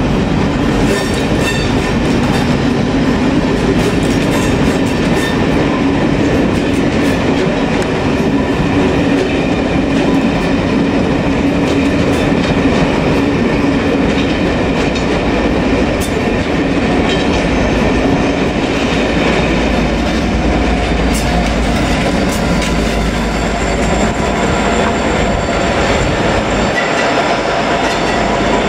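Rake of Pullman coaches passing on the track, wheels clicking over the rail joints over a steady rolling noise. In the last ten seconds a Class 57 diesel locomotive, an EMD two-stroke V12, passes as the rear engine, adding a deeper rumble.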